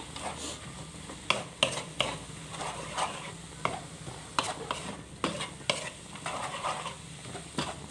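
A spatula scraping and knocking against a wok as chopped napa cabbage, tofu and egg are stir-fried, over a light sizzle. The scrapes come irregularly, roughly one every half second to second.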